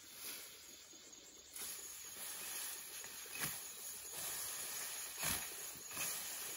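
Tall grass rustling and swishing as it is gathered and cut by hand, with a few short, sharper swishes.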